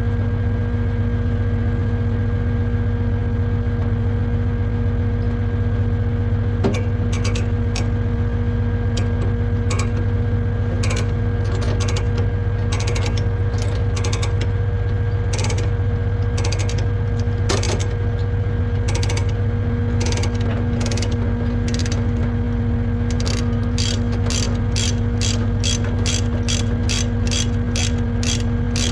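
Ratchet tie-downs being worked while securing or releasing equipment on a rollback: scattered clicks at first, then a quick even run of about three clicks a second near the end. Under it the rollback's diesel engine idles steadily.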